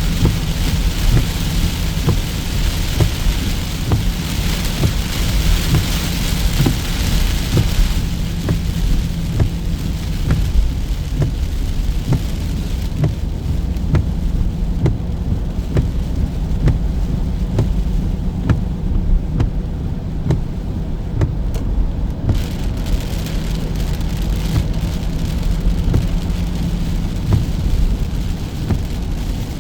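Heavy rain falling, with many separate drops striking a surface close to the microphone over a deep, steady rumble. The higher hiss of the rain is strongest for the first several seconds, then thins out.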